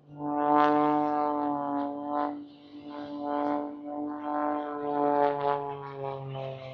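Aerobatic airplane's piston engine and propeller droning at a steady pitch, swelling and fading in loudness several times as the plane tumbles through its maneuver.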